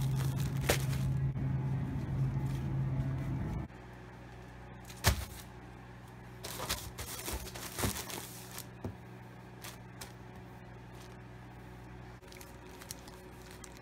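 A steady low store hum for the first few seconds as a loaf of sliced white bread is taken off a supermarket shelf, cutting off abruptly. Then a quieter room with one sharp knock about five seconds in, followed by bursts of crinkling and small clicks from the loaf's plastic bread bag.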